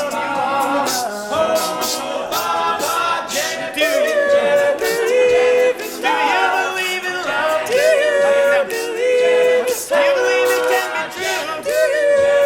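Male a cappella group singing in close harmony: a lead voice sings over sustained backing vocals, with a steady beat running underneath.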